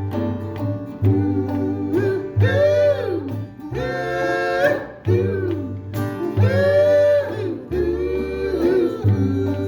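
Acoustic string band playing a folk tune: a steady plucked bass and strummed guitar under a melody line that slides up and down between notes in two long phrases.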